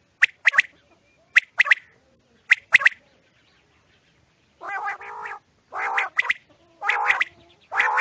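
Caged quails calling: sharp, high call notes in quick groups of two or three, then, after a short pause, louder and harsher calls repeated about once a second.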